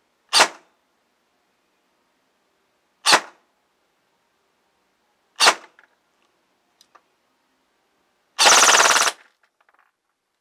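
CTW (PTW-type) electric airsoft rifle, driven by a hand-wound custom motor on an 11.1 V LiPo, firing three single shots a couple of seconds apart and then a short full-auto burst lasting under a second.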